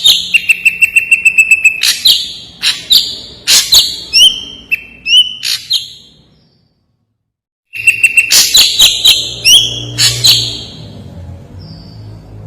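Ashy drongo singing: a rapid string of sharp, harsh notes and clear whistles, some of them rising. The song breaks off for about a second and a half of silence just past the middle, then starts again.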